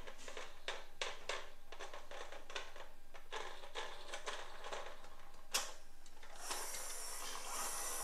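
Plastic toy vehicles clicking and knocking against each other as a toy fire truck is lifted and moved among them in a cardboard box, with one sharper knock about five and a half seconds in. A steady hissing noise starts about six and a half seconds in.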